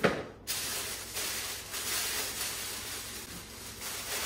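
Thin plastic bag crinkling and rustling as it is pulled off a water bottle, after a brief thump at the very start.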